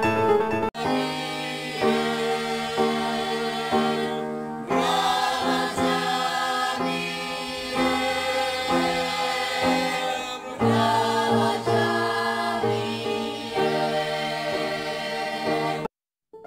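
A youth choir singing together, with sustained chord-like notes. The sound cuts in abruptly just under a second in and drops out briefly near the end.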